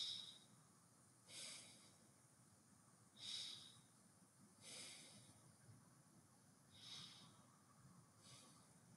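A woman breathing slowly in and out: six faint, short breaths about a second and a half apart, part of a paced breathing exercise.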